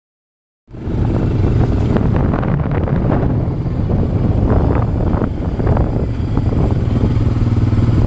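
ATV engine running steadily while riding a dirt trail, with knocks and rattles from the ride over it. It cuts in abruptly just under a second in.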